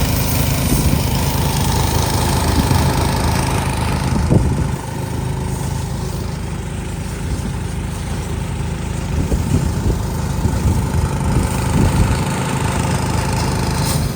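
A vehicle engine idling steadily, with a thin steady tone running alongside it that stops near the end.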